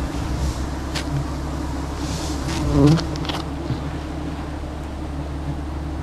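A swarm of wild honeybees buzzing steadily around an open comb being harvested, with a brief louder sound about three seconds in.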